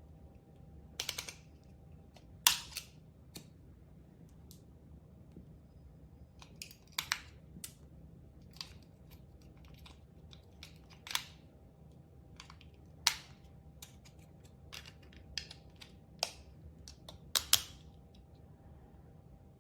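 Irregular sharp clicks and light taps of a small device being handled, about a dozen spread out, the loudest about two and a half seconds in, about thirteen seconds in and near the end, over a faint steady hum.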